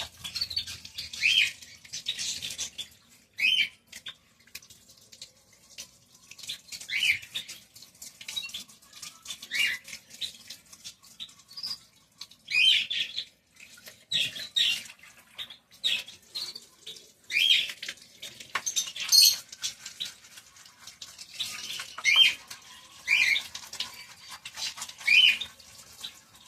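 Birds calling again and again with short, sharp squawks that slide down in pitch, one every second or two, over the faint scratching of a small brush scrubbing.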